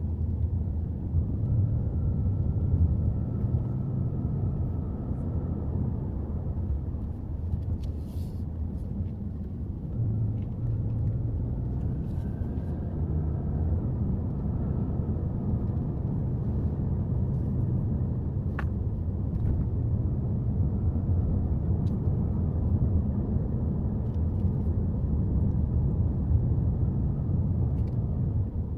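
Subaru Forester driving: a steady low rumble of road and engine noise, with a faint whine that wavers in pitch and a few light clicks.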